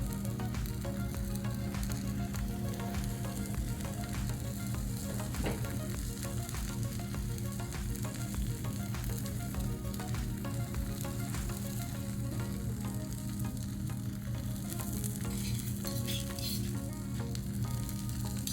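Beaten eggs frying on a Blackstone flat-top griddle, with a steady sizzle.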